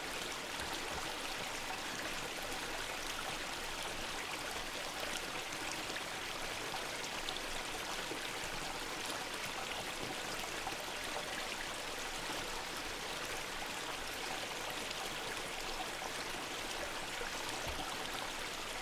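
Mountain river and waterfall rushing steadily, an even hiss of falling and flowing water.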